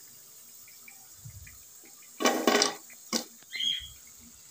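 Hot oil sizzling faintly under potato kababs deep-frying in a pan. A little past halfway there is a loud half-second clatter, then a sharp click and a short ringing clink, as a steel slotted spoon lifts the fried pieces out onto a serving plate.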